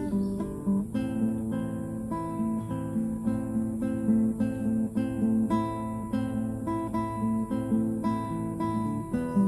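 Acoustic guitar strummed in a steady rhythm, about two chords a second, each left ringing into the next.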